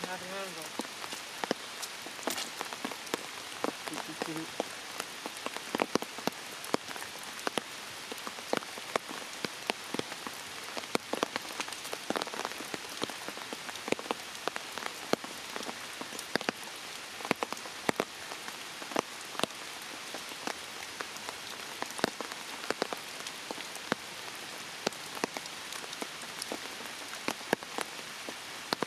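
Steady rain falling, with frequent sharp, irregular taps of raindrops landing close by.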